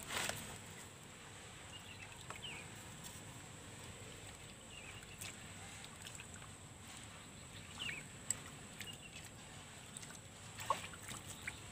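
Quiet outdoor ambience: a steady high-pitched insect drone with a few faint short chirps and a light click or two.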